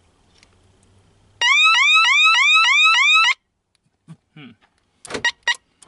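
Viper 3106V car alarm siren sounding a rapid run of rising whoops, about four a second, for about two seconds, then cutting off abruptly. A few sharp clicks follow near the end.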